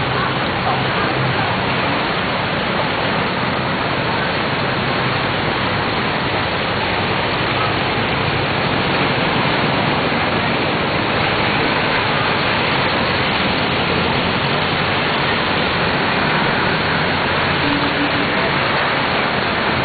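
Steady rushing water noise of a street flood: floodwater flowing and splashing around wading legs and wheels, mixed with falling rain.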